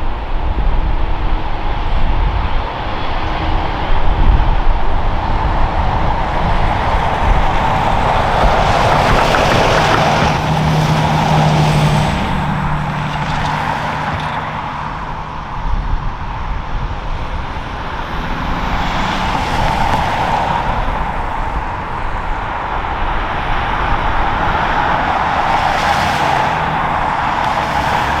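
Jet airliner engines running loud and continuous through an approach and landing, swelling and easing in whooshes, with strong storm wind buffeting the microphone in low gusts.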